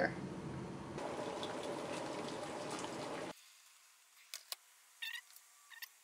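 Steady rush of hot water for about three seconds, then it cuts off sharply, followed by a few faint clicks.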